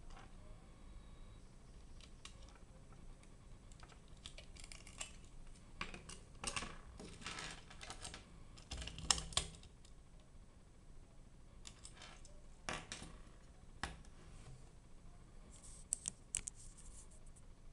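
Small plastic F-14 toy key chains being handled: scattered clicks, taps and light clatter of plastic and metal key rings against a table, coming in several short clusters.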